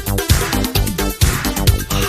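Electronic dance music from a DJ mix, with a steady kick drum about twice a second under synth notes; no vocals.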